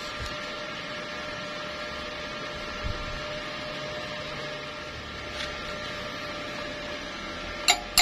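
Steady mechanical hum and hiss, like a machine's fan, with faint steady tones. Near the end, a hammer hits steel with a sharp, ringing strike, the first of a run of evenly spaced blows.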